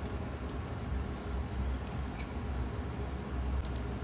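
Steady low rumble from a stove heating cooking oil in a wok, with a few faint small ticks. The oil is still warming up and not yet sizzling.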